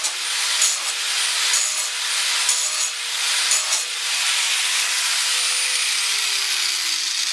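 A power tool grinding the cutting edge of a Snapper Comet mower blade, in rasping strokes about once a second at first, then a steady grind whose motor tone drops in pitch near the end.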